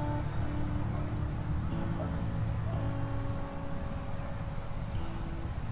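Background music of slow, held notes over a steady high-pitched hiss.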